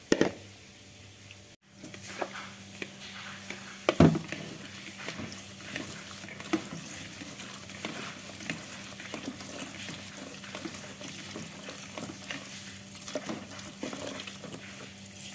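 Thin stream of tap water running into a plastic bowl while hands swish and rub mushrooms in the water, with small splashes and clicks. One sharp knock about four seconds in.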